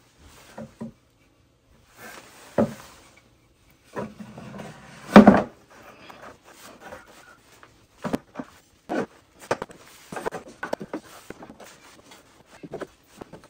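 Pieces of dry birch burl knocking and scraping against each other and against the inside of a plastic bucket as they are fitted in by hand. Irregular knocks and rubs, the loudest about five seconds in, with a run of smaller clicks and taps near the end.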